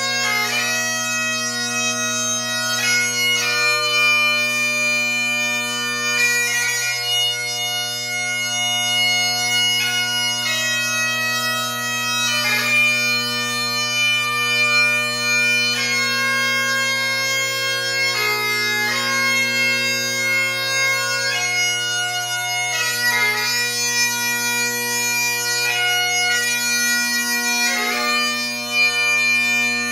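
Great Highland bagpipes playing a slow piobaireachd lament: the drones sound steadily under a chanter melody of long held notes, broken every second or two by quick grace-note cuts.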